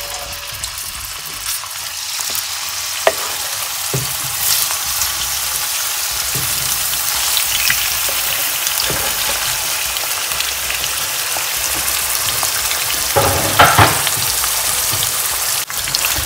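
Cubed beef lung frying in hot vegetable oil in a frying pan: a steady, loud sizzle. A few knocks of a utensil against the pan come through, the loudest cluster near the end.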